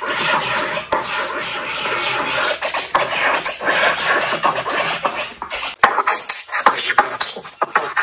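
Electronic music with DJ record-scratching effects, played through a tablet's speaker by the LEGO Boost robot app; the scratching turns choppier and more broken-up from about six seconds in.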